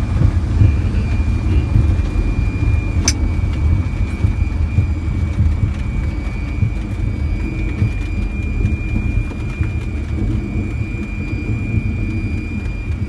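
Fokker 100 cockpit on the landing rollout: a deep, steady rumble from the airliner rolling down the runway, easing slowly as it decelerates. A thin, steady high-pitched tone sits above it, with a single sharp click about three seconds in.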